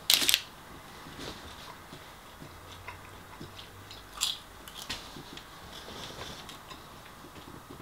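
Chip-shop chips grabbed from their paper wrapping, with a brief loud paper rustle right at the start, then close-up eating sounds: chewing with scattered small mouth clicks and another short crackle about four seconds in.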